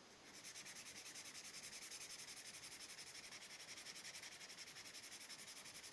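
Nail file rubbed quickly back and forth across the page edges of a paperback manga: a faint, even scratching of several strokes a second, sanding an ink stamp off the edges.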